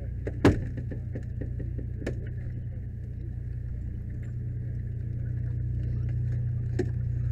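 Engine running steadily with a low drone and a steady whine above it, typical of apparatus or a rescue-tool power unit at an extrication. A loud sharp knock comes about half a second in, with a few lighter clicks later.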